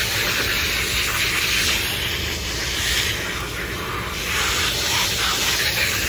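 Water jetting from a garden-hose spray nozzle onto an air conditioner's condenser coil: a steady hiss of spray rinsing coil cleaner and dirt out of the fins, dimming slightly about three seconds in.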